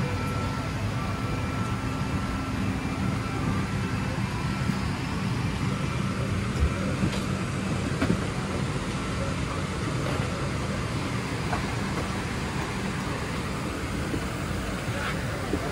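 Steady rumble of a vehicle in motion, with a few light knocks partway through.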